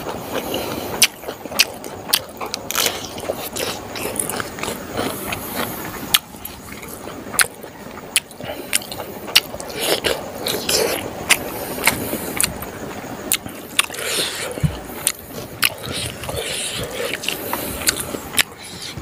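Close-miked eating sounds: wet chewing and lip smacking of smoked pork and rice, with frequent sharp clicks from the mouth and fingers.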